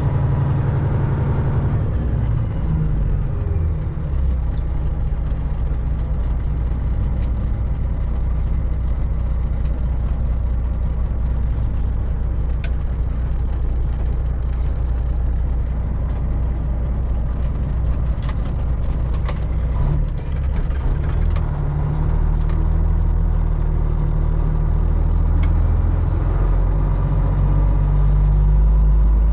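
Semi truck's diesel engine running under load, heard from inside the cab. Its note drops a few seconds in, then rises and grows louder over the last several seconds as the truck pulls ahead.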